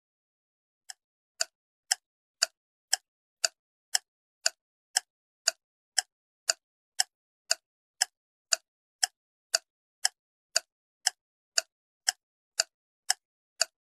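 Ticking countdown-timer sound effect: sharp, evenly spaced clock-like ticks about twice a second, starting about a second in.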